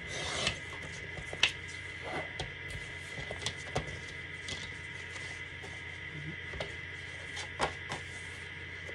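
Fiskars sliding paper trimmer cutting black cardstock: a short swish of the blade through the card at the start, followed by scattered clicks and taps as the trimmer and the cut card are handled. A steady faint high hum runs underneath.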